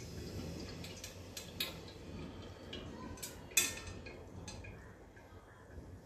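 Light clinks and taps of metal kitchen utensils against a cooking pot, a few scattered strikes with the sharpest about three and a half seconds in.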